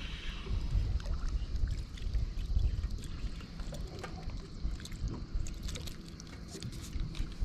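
Low rumbling wind and water noise around a small boat at sea, with scattered light clicks and ticks, more of them in the second half, as a small fish on a metal jig is lifted from the water on a spinning rod.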